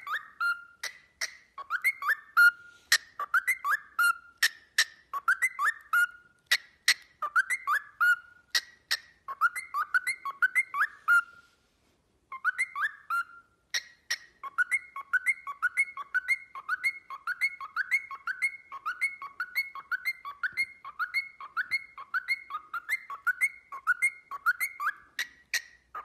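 A cockatiel whistling the same short rising-and-falling phrase over and over, with sharp clicks between the notes. The sound breaks off briefly a little before halfway, then goes on in a quicker, more even run of notes.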